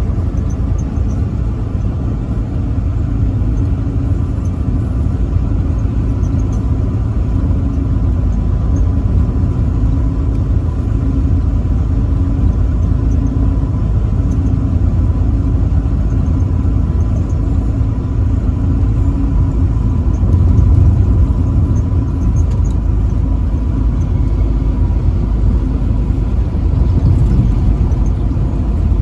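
Truck driving at road speed: a steady low engine and road rumble with a thin, steady whine above it.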